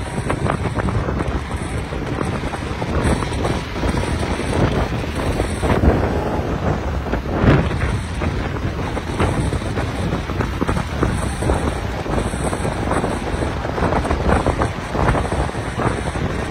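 Wind buffeting the microphone of a camera on a moving bicycle: a steady rushing noise with irregular louder gusts.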